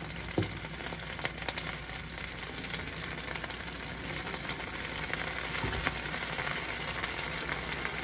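Fresh spinach leaves sizzling in a hot frying pan as more torn leaves are dropped in. The hiss is steady and grows a little louder over the stretch, with a few faint ticks.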